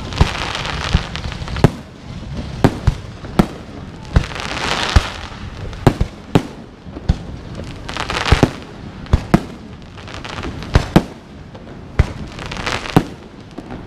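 Aerial fireworks display: a steady run of sharp booms, sometimes two or three in quick succession, with crackling, hissing swells of bursting shells in between.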